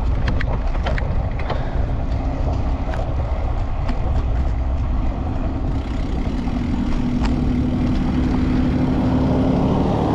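Highway traffic going by close to a cyclist, with a steady low rumble, likely partly wind on the microphone. A few sharp clicks sound in the first three seconds, and a steady hum from a passing vehicle begins about six seconds in.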